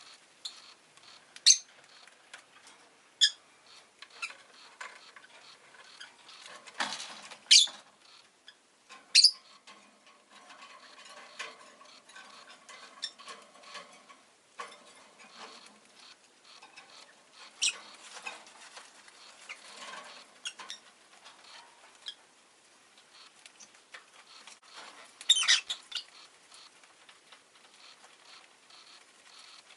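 Rosy-faced lovebird giving short, sharp, high chirps now and then, about six in all, with soft scratching and rustling between them.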